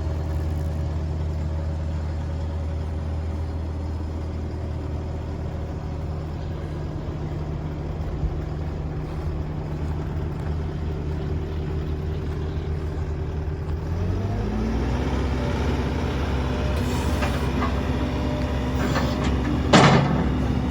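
Link-Belt 160 X2 hydraulic excavator's diesel engine idling steadily, then revving up about two-thirds of the way through and holding at a higher steady speed. A brief, loud sharp noise sounds near the end.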